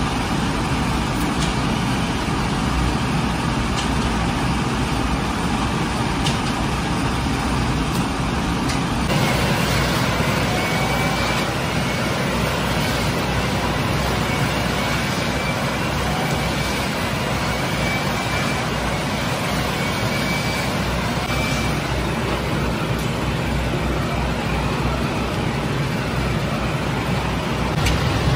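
Steady machine noise of a gas-fired conveyor bread oven, its burners and blower running. The sound changes about nine seconds in, and faint short high squeaks come every couple of seconds for a while after.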